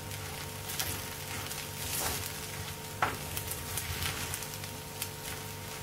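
Wooden spatula stirring and mixing cooked broken-wheat upma in a frying pan, with soft gritty scrapes and a few light knocks against the pan, over a faint steady hum.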